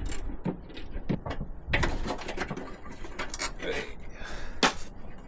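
Hand tools working rusted bolts on a Land Rover's wing: irregular metallic clicks and scrapes, with one sharp knock about four and a half seconds in.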